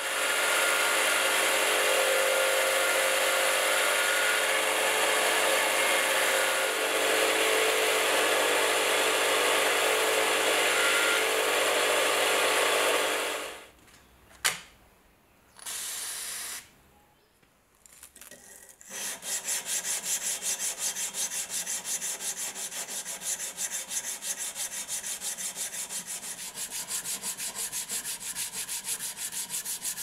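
A bench power tool with a spinning disc runs steadily, grinding the steel knife blade, and stops after about thirteen seconds. A sharp click and a brief noise follow. From about 19 seconds on, a sharpening stone rubs back and forth along the blade in quick, regular strokes.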